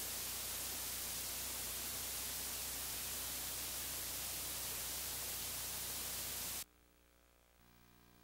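Steady static hiss with a low hum underneath, the sound of blank videotape playback after the recorded programme ends. It cuts off abruptly about six and a half seconds in, leaving near silence.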